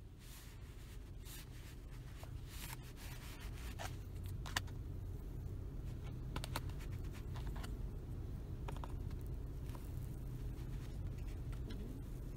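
White plastic knife scraping and cutting through cornbread in a plastic tray, with scattered scrapes and clicks and one sharper click a little before the middle. Under it is a steady low rumble in the car.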